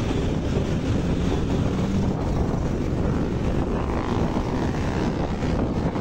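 Steady drone of a vehicle driving along a road, with wind buffeting the microphone.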